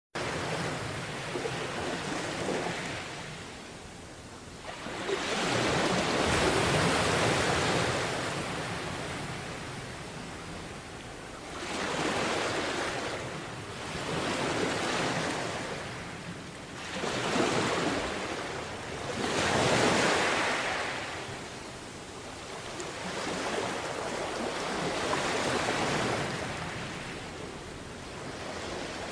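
Sea waves washing ashore, the surf swelling and falling away in a slow rhythm of surges every few seconds.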